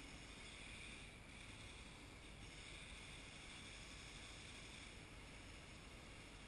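Near silence: a faint, steady outdoor hiss with no distinct sound events.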